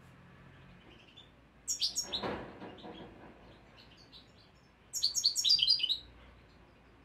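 A first-year European goldfinch singing in a cage: two bursts of quick, high twittering song, one about two seconds in and a louder one about five seconds in, with faint chirps between. It is at the stage of settling the song it is learning from a tutor recording, and its song is fair.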